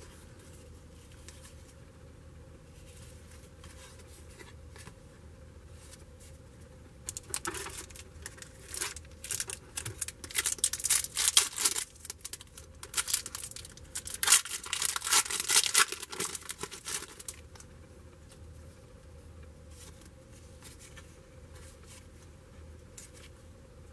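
A 1993 Skybox Impact football wax pack being torn open, its wrapper crinkling: a run of ragged tearing and crackling rustles for about ten seconds in the middle, with only faint room noise before and after.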